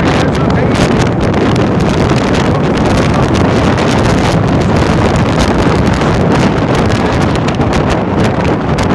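Storm-force wind buffeting the microphone: loud, continuous, rough wind noise that swamps everything else.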